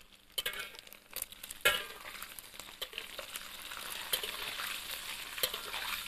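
Dried anchovies frying in hot oil in a wok, sizzling steadily, with sharp clinks of metal utensils against the wok as they are scooped out; the loudest clink comes about a second and a half in. The sizzle starts low and picks up after the first half second.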